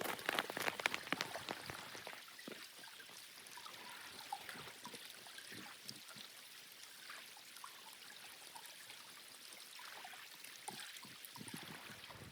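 Water running or trickling: a steady hiss full of small splashes and clicks, busiest in the first two seconds.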